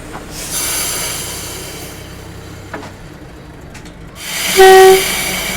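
Niigata diesel locomotive: a burst of air hissing about half a second in that fades away, then near the end a rising hiss and a short, loud single-note blast on the air horn.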